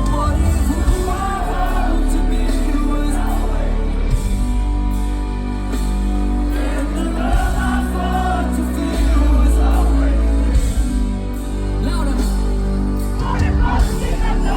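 Live pop music from a concert: a band with heavy, sustained bass and a singer's voice over it.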